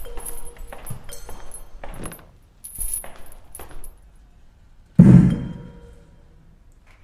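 Small metallic clinks and jingles over the first few seconds, then one heavy thud about five seconds in that booms and dies away over about a second.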